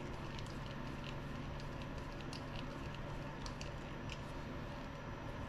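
Faint, scattered light clicks and ticks of a small nut driver and shock tool working the locking nut on an RC shock piston, over a steady low hum.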